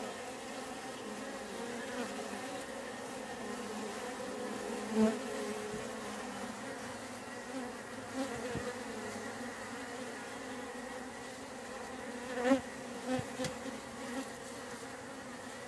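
Honey bees buzzing while they lap up spilled honey from a board. It is a steady hum with a few brief louder swells that waver in pitch, the strongest about twelve seconds in.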